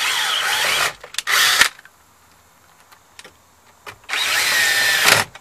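Drill with a 7 mm socket driving hex-head screws into a plastic under-dash panel. It runs for about a second, gives a short burst, then after a pause of a few seconds runs for about another second.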